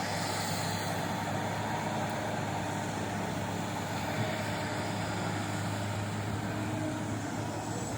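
Diesel engine of a Rhino REX215 grapple excavator running steadily with an even low drone.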